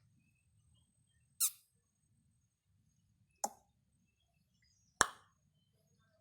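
Three short, sharp clicks about a second and a half apart, the last the loudest.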